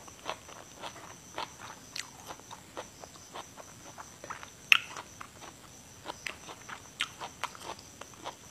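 Close-miked chewing of crisp fresh vegetables: irregular wet crunches and mouth clicks, with one louder sharp crack a little past halfway.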